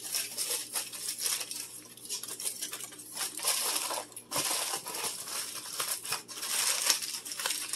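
Aluminium foil crinkling in irregular crackles as a second sheet is unfolded and pressed down over a disposable aluminium baking pan.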